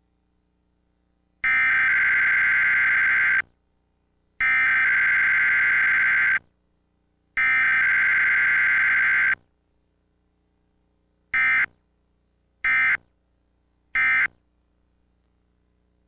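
Emergency Alert System SAME data tones for a Required Weekly Test. Three header bursts of about two seconds each come a second apart, then three short end-of-message bursts about a second and a half apart.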